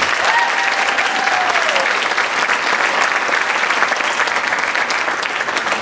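Theatre audience applauding, dense steady clapping at the end of a sung number.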